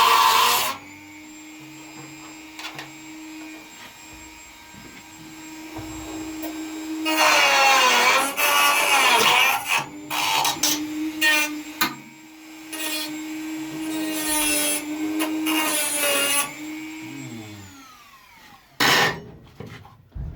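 Power grinder working on the car's sheet steel: the motor runs steadily, then grinds in one long pass and several short bursts, its pitch dipping under load and recovering, before it winds down near the end. A single sharp knock follows shortly before the end.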